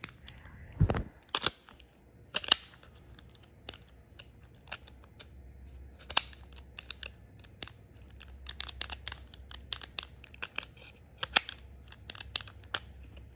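Ruger LCR .38 Special revolver being dry-fired and worked by hand: a long, irregular string of sharp metallic clicks from the trigger and cylinder as the owner tries to free a trigger that intermittently locks up. There is a low handling thump about a second in.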